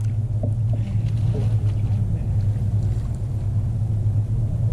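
Steady low engine hum on a fishing boat at night, unchanging, with a few faint light knocks over it.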